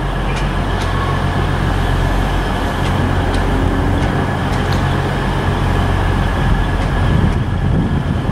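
Northern Class 150 Sprinter diesel multiple unit running slowly over pointwork, its underfloor Cummins diesel engines droning steadily, with a few brief sharp clicks.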